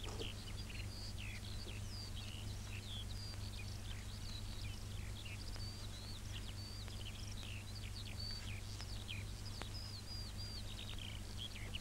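Small birds chirping and twittering, many short chirps rising and falling in pitch, over a steady low hum.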